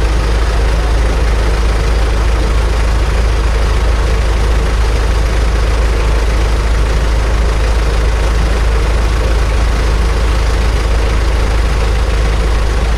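An engine running steadily and loudly, with a constant deep rumble that does not change.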